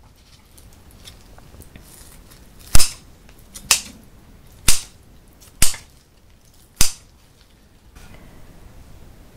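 Kitchen scissors cutting grilled pork neck: five sharp snips, about one a second, as the blades close.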